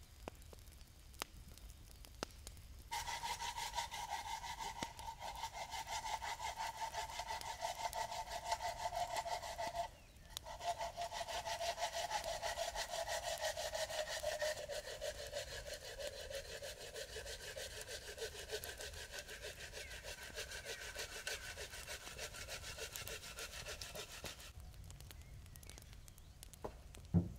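A hand saw cutting through a log with rapid, steady strokes, starting a few seconds in and pausing briefly about ten seconds in. A ringing note in the blade slowly drops in pitch. The sawing stops a few seconds before the end, followed by a single sharp knock.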